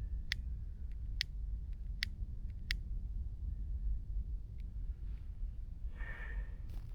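Burning reed in a struggling campfire crackling, four sharp cracks in the first three seconds, over a steady low rumble.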